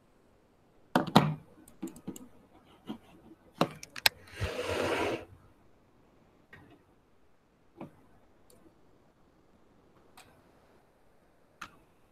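Scattered clicks and knocks, the loudest about a second in, with a short burst of hiss about four and a half seconds in; fainter single clicks come every second or two after it.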